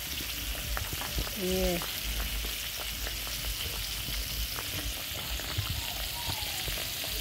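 Flour-coated chicken pieces frying in hot oil in a cast-iron pot: a steady sizzle with frequent crackling pops.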